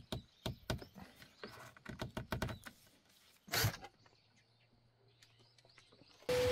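Light clicks and knocks from fixing a cable and box in place, then a short burst from a cordless drill driving a screw into the electrical box about three and a half seconds in.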